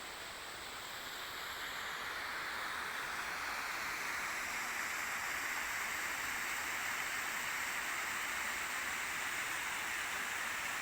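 Small waterfall rushing steadily, getting a little louder about two seconds in.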